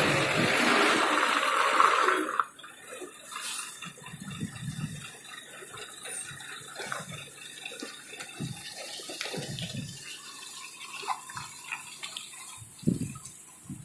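A loaded goods lorry's diesel engine running loud and close with a strong hiss, dropping away suddenly about two seconds in as the lorry pulls away around the hairpin bend; after that, quieter low rumbles and a few faint bird chirps.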